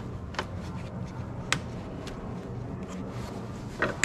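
A few sharp plastic clicks and small rattles as an oxygen sensor's wiring plug is worked loose by hand, with a cluster of clicks near the end, over a steady low hum.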